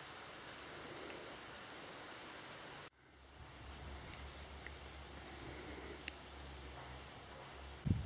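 Quiet woodland ambience: a steady faint hiss with a few brief, high bird chirps. The sound cuts off sharply about three seconds in and comes back with a low rumble underneath.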